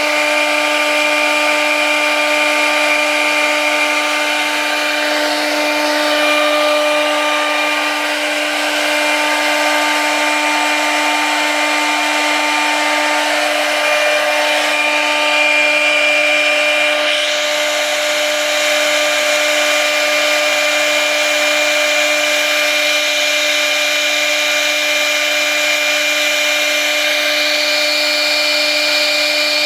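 CNC router spindle cutting through 22 mm compact board: a steady high-pitched whine over the noise of the bit chipping through the material.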